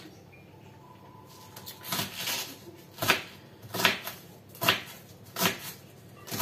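Kitchen knife cutting through a head of cabbage onto a wooden cutting board. It makes about six crisp chopping strokes, evenly spaced a little under a second apart, starting after a quiet second and a half.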